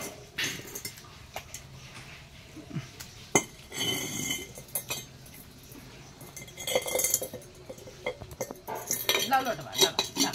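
A small stainless-steel pot knocked, rolled and scraped by a monkey on a concrete floor: irregular metallic clanks and scrapes, some ringing briefly.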